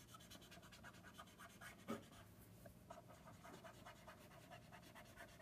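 Faint, quick, repeated strokes of a Copic alcohol marker's brush nib rubbing on paper while colouring, with one slightly louder tap about two seconds in.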